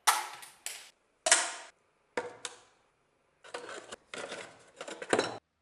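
A series of sharp knocks and clatter from tools or parts being handled, in quick groups, the loudest near the start and about a second and a half in, each cut off abruptly.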